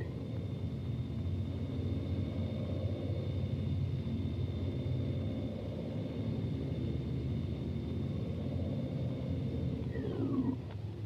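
Low steady rumble with a high steady whine over it, like a running machine. About ten seconds in, the whine stops and a tone slides down in pitch as the rumble eases off.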